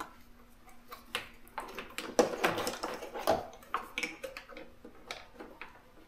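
Hands handling a relay, its wiring harness and plastic trim: irregular small clicks, taps and rustles, the loudest knocks about two and three seconds in.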